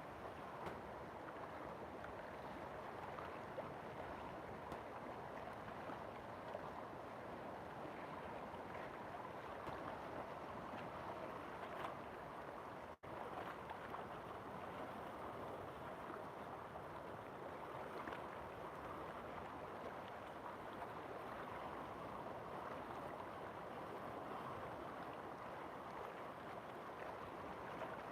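River water flowing with a steady rushing sound, broken by one momentary dropout about halfway through.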